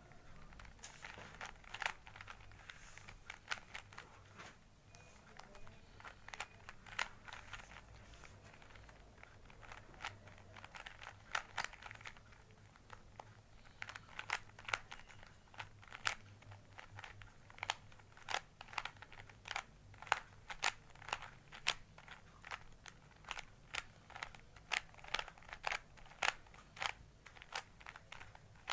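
Rubik's Cube being turned by hand during a solve: quick, irregular clicks and rattles of its plastic layers rotating, coming in flurries that grow denser in the second half.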